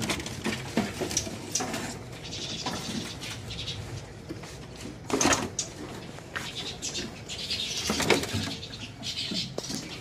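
Many caged songbirds chirping and twittering at once, with light taps and fluttering from birds moving about in their cages. Two louder sounds stand out, about five and eight seconds in.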